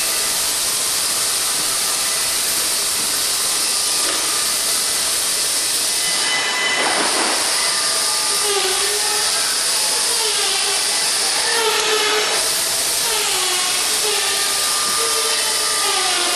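Steady machine hiss, with wavering squeaking tones coming in about halfway.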